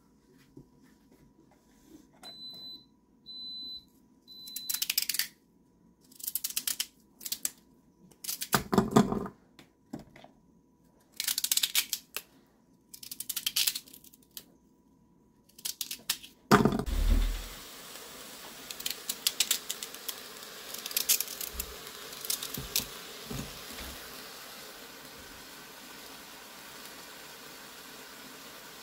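Three short electronic beeps, then raw Jerusalem artichokes being snapped and peeled by hand over a stainless-steel pressure-cooker pot, in a series of short scraping bursts. A loud thump comes about two-thirds through. After it a steady hiss runs under light clicks and taps.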